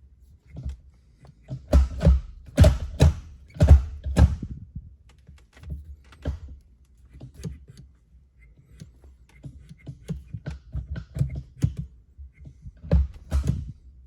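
Irregular knocks and thunks with lighter clicks between them, as car interior and shifter parts are handled and fitted by hand; the loudest knocks come in a quick cluster about two to four seconds in and again as a pair near the end.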